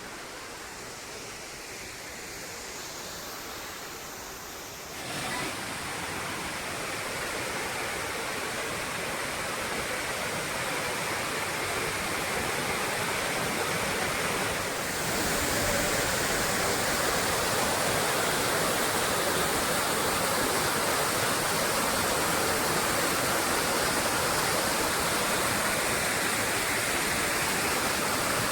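Steady rushing of a waterfall, getting louder in two steps, about five seconds in and again about fifteen seconds in.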